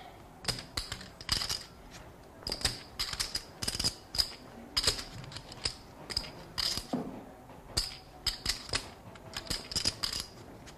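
Poker chips clicking together as they are handled at the table, in irregular runs of sharp, light clicks.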